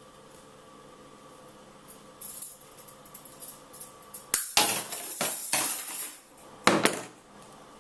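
Bonsai wire and tools being handled: metal clinking and rattling in several bursts, with a sharp click about four seconds in.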